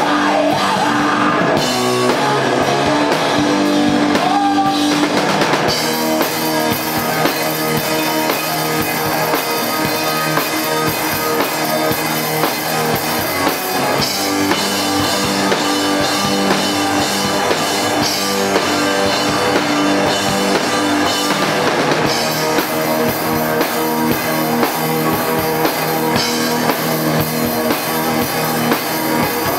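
Live rock band playing loud: electric guitars with sustained chords and a drum kit keeping a steady beat.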